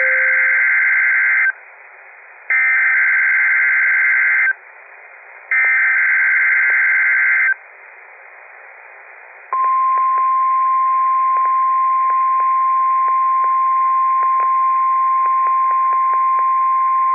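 NOAA Weather Radio alert signal received over a radio: three two-second bursts of warbling digital SAME header data tones, a second apart, then the steady 1050 Hz warning alarm tone held for about nine seconds. Faint static clicks lie underneath. It marks the start of the routine weekly test.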